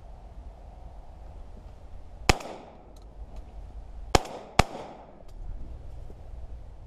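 Three shots from a Winchester SX3 semi-automatic shotgun: one a couple of seconds in, then two in quick succession about half a second apart, each with a short ring-out.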